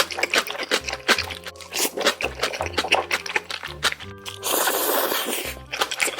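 Background music with a bass line under close-miked sounds of noodle eating: wet smacking and chewing clicks, with a longer slurp about four and a half seconds in.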